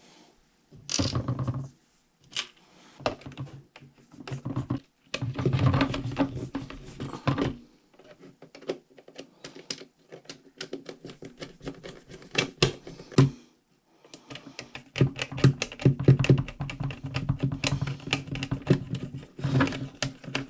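Irregular small clicks, taps and rattles of hands working on a plastic drone remote controller, fitting antenna parts and snugging small nuts.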